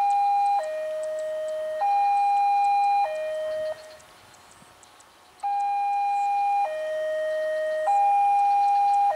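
Railway level-crossing warning alarm sounding for an approaching train: an electronic two-tone signal alternating high and low, each tone held about a second. It breaks off for a moment around the middle, then starts again.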